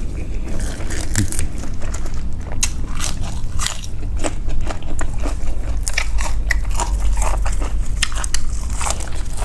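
A person chewing and biting a mouthful of pork noodle soup with instant noodles and pork meatballs: many irregular wet mouth clicks over a steady low hum.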